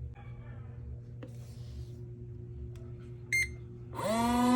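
A short electronic beep, then near the end a small electric motor starts. Its pitch rises quickly and it settles into a loud, steady hum: the mini washing machine switching on and starting to run.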